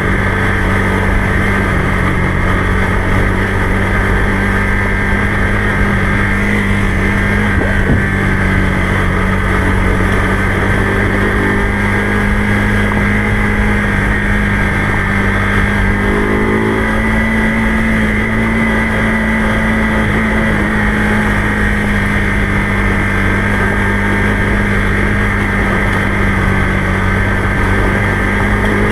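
Motorcycle engine running at a steady speed while riding, with a steady drone and wind and road noise. The pitch rises slightly a little past halfway.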